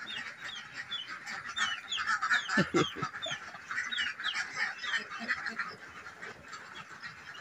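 A flock of laying ducks crowding around fresh feed, a busy chorus of short, falling high calls over steady chatter. A few louder, lower calls come about two and a half to three seconds in.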